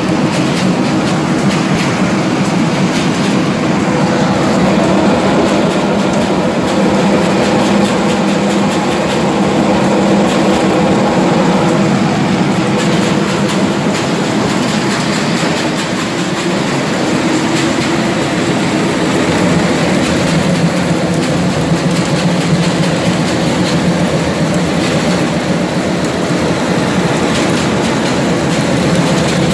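Palm kernel oil mill machinery running: a loud, steady mechanical drone with continuous rattling and clatter of crushed kernels moving through conveyors and screens.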